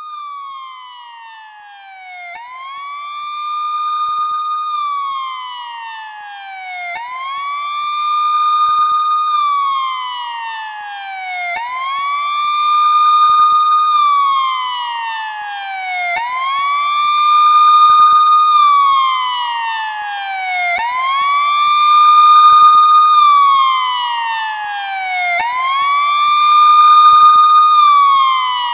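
Police car siren in a slow wail: each cycle the pitch rises quickly, holds briefly at the top, then falls slowly, repeating about every four and a half seconds. It grows steadily louder.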